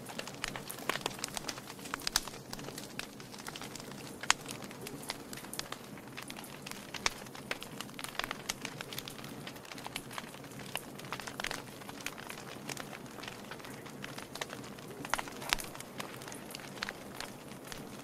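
Wood logs burning in a fireplace, crackling with many small irregular pops over a low steady hiss, a few pops sharper and louder than the rest.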